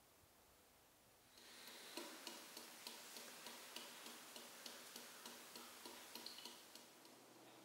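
Faint, regular ticking of a wall clock, about three ticks a second, starting about two seconds in over a soft hiss of room tone.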